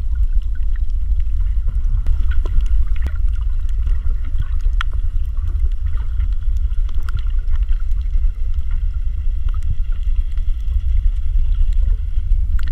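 Muffled underwater sound picked up through a GoPro Hero 4's waterproof housing: a steady low rumble of water moving against the case, with scattered faint clicks and crackles.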